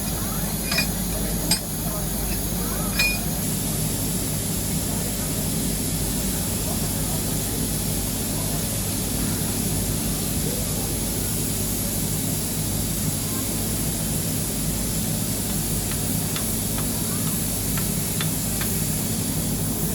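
Steady hiss of a Nilgiri Mountain Railway steam locomotive standing at the platform, with a few metallic clinks in the first three seconds.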